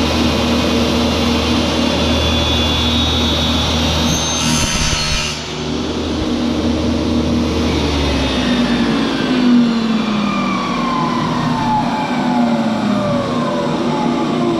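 Electric power-tool motor running steadily with a low hum, with a brief higher hiss of work contact about four seconds in. Just past halfway it is switched off and winds down, its pitch falling over several seconds.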